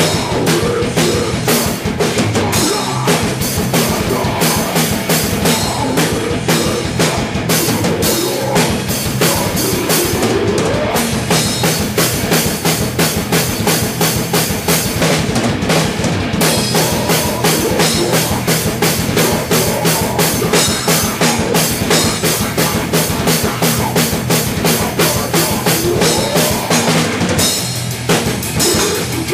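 Heavy metal band playing live in a rehearsal room: fast, dense drum kit beats under distorted, loud instruments, with shouted vocals.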